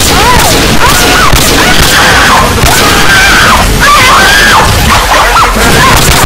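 A loud, distorted jumble of meme sound effects: high, fast-wavering squeals over repeated crashes and hits.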